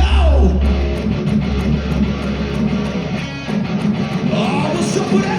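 Rock band playing live through a PA, led by distorted electric guitar. A deep bass drone cuts off about half a second in under a falling pitch slide. The guitar then plays a steady low riff, with more pitch slides near the end.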